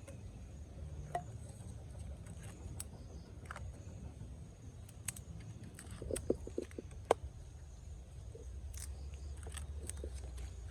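Scattered light clicks and taps, with a quick run of them about six to seven seconds in, over a low steady rumble.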